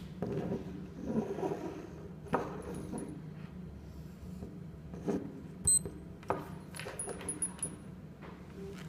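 Plastic digital wristwatch being handled, with scattered clicks and taps as its buttons are pressed, and one short high electronic beep from the watch a little past halfway. A steady low hum runs underneath.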